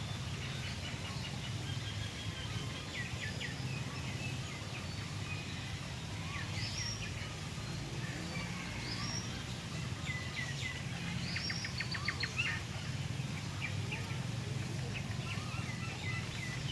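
Small birds chirping and whistling on and off, with a quick rapid trill about two-thirds of the way through, over a steady low background rumble.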